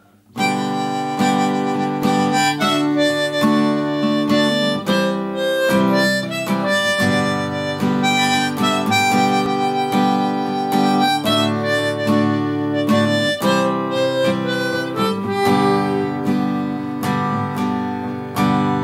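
Harmonica playing a folk melody over a strummed acoustic guitar, an instrumental introduction with no singing; the strums fall in a steady rhythm and the music starts abruptly about half a second in.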